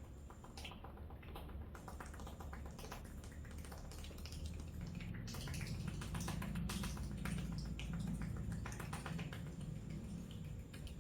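Massage sounds: a fast run of light clicks and taps of strokes working over the head and skin, with a low muffled rubbing that grows louder in the middle.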